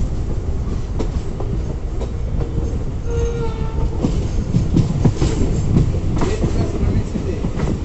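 Train running on the rails: a steady low rumble with the clicks of wheels over rail joints. About three seconds in, a short pitched tone sounds for under a second, and the running grows rougher and louder after that.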